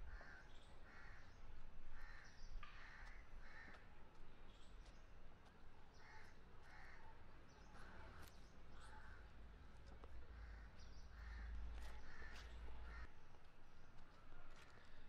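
Crows cawing, a run of short harsh calls repeated every half second or so, with pauses between runs, over a faint low rumble.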